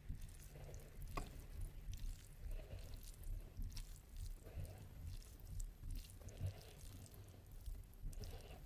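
Close-miked eating sounds: soft chewing and the squish of oily biryani rice and mutton gravy handled with bare fingers, with small wet clicks.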